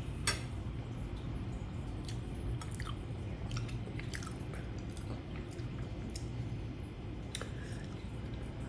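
Close-up chewing of soft, tender stewed chicken feet, with small clicks scattered through and a steady low hum underneath.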